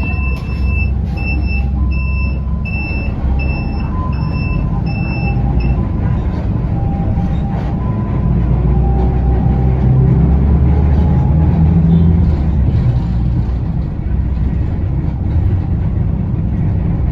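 TransJakarta city bus running, its engine and road noise a steady low rumble. For the first six seconds a high electronic beep repeats about every 0.7 s, eight times, then stops.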